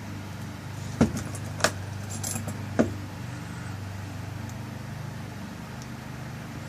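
Small metal clicks and clinks of lock parts as a tailpiece is screwed back onto a rekeyed lock cylinder, four sharp clicks in the first three seconds, over a steady low hum.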